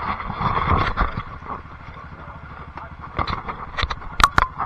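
An off-road vehicle's engine idling with a steady low rumble, with a few sharp knocks or clicks near the end.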